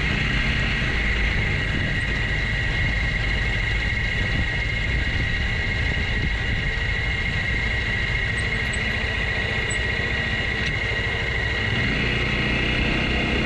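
Motorcycle riding at a steady pace: the engine runs with a constant rumble of road and wind noise and a steady whine, with no change in speed.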